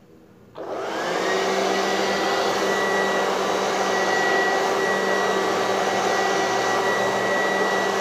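WAP robot vacuum cleaner switching on about half a second in. Its suction fan starts suddenly, spins up with a whine that rises over about a second, then runs steadily. It is running on a rebuilt battery pack of four 18650 laptop cells.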